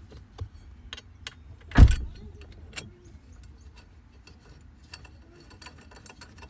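Small metal bolts and plastic parts clicking and rattling as they are handled and fitted during the blower motor reassembly, with one loud knock about two seconds in, over a low steady hum.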